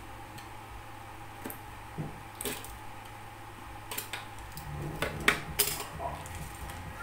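A utility cutter blade scraping and clicking against the router's plastic housing as a part is trimmed flat: a scatter of short scrapes and clicks, with a louder cluster about five seconds in, over a steady low hum.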